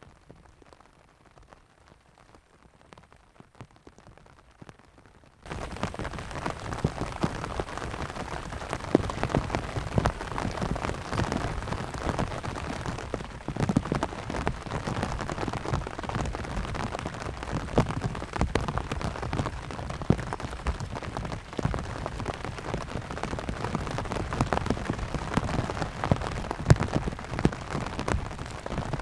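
Heavy rain falling on a thin cotton canvas tent, a dense patter of drops that starts suddenly about five seconds in; before that only a few faint drops.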